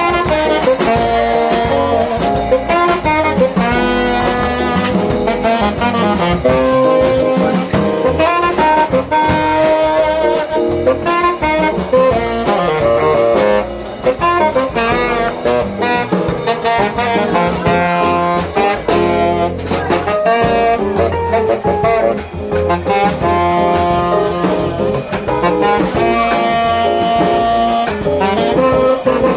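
Live jazz from a quartet: a saxophone plays a fast-moving melodic line over drum kit and rhythm section.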